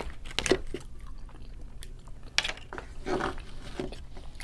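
Close-miked eating sounds: chewing and a few soft, wet mouth clicks, with fingers handling seafood boil on a tray, over a faint low hum.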